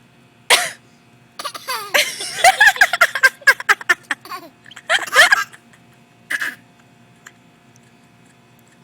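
Laughter and giggling in a dense run of about three seconds, with short single cough-like bursts before and after it: a baby's imitation coughs.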